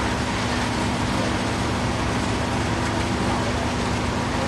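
Steady hum of idling vehicle engines over a constant wash of street noise.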